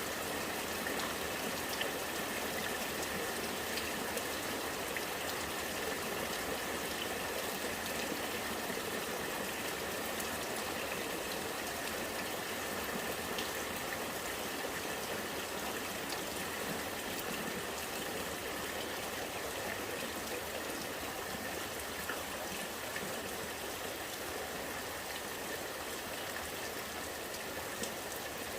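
Rainwater running and gurgling steadily, with scattered drips ticking through it.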